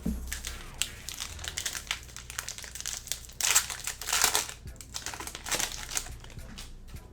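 Foil trading-card pack wrapper crinkling as it is handled and opened, a quick run of crackles that is densest and loudest between about three and a half and four and a half seconds in.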